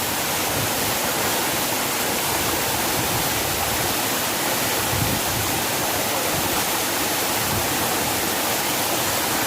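Waterfall: a steady, loud rush of falling and splashing water, even throughout.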